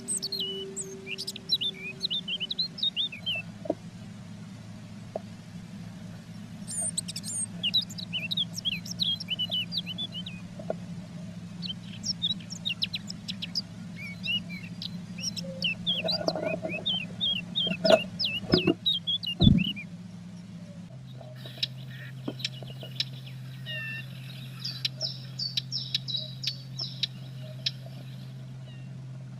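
Small songbirds chirping and twittering in quick bursts over a steady low hum. A few dull knocks come about two-thirds of the way through, the loudest sounds in the clip.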